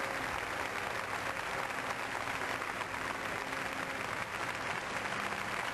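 Audience applauding steadily, a dense even clapping with no break.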